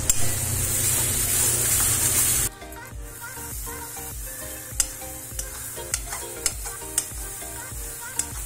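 Masala and ground spices frying in hot oil in a metal kadhai, a loud sizzle while being stirred, which cuts off suddenly about two and a half seconds in. After that, a few sharp clicks of the metal slotted spoon scraping and tapping against the pan over background music.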